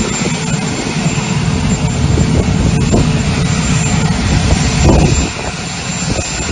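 Jet aircraft's engines idling with a loud, steady rush, easing off slightly about five seconds in.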